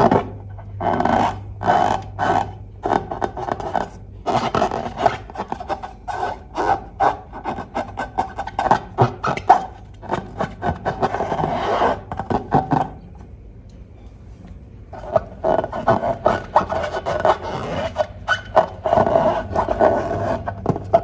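Slime and balloons being squeezed and rubbed by hand: a fast, irregular run of short squishing and rubbing noises, pausing for a couple of seconds about two-thirds of the way through.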